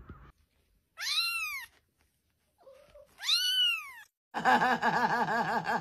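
A cat meowing: two separate meows that each rise and fall in pitch, then from about four and a half seconds in a longer, louder yowl whose pitch wavers quickly up and down.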